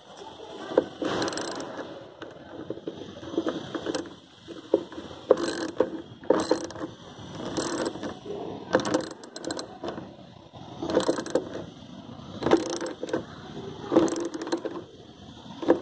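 Ratcheting wrench tightening a side-mirror mounting bolt: a short run of rapid clicks from the ratchet on each return stroke, repeating about once a second.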